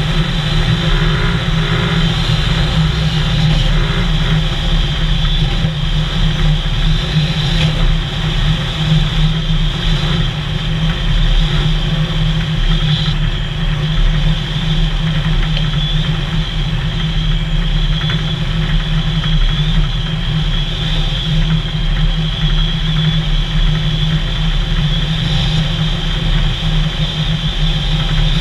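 Vehicle engine running steadily at cruising speed, with an even drone and road noise that stay constant throughout.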